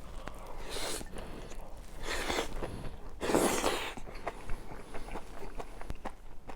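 Close-miked mouth sounds of a person eating steamed pork kimchi: three airy, noisy rushes of breath or slurping about a second apart, with small wet clicks of chewing between them.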